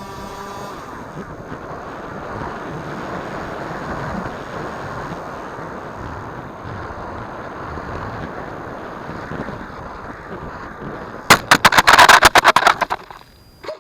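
Airflow rushing over the Firebird Stratos RC plane's onboard keychain camera. The electric motor's whine drops in pitch and dies out within the first second as the plane glides. About eleven seconds in there is a rapid burst of loud knocks and rattles lasting under two seconds, typical of the plane hitting the ground.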